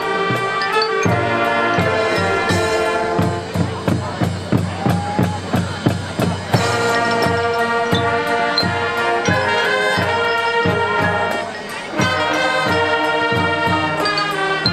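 Marching band playing: brass holding sustained chords over drums, with a run of steady drum beats about two a second in the middle, a brief drop just before the full band comes back in near the end.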